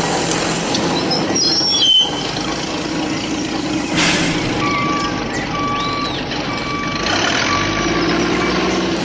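Vehicle engine running steadily, with a series of evenly spaced high beeps like a reversing alarm starting about halfway through.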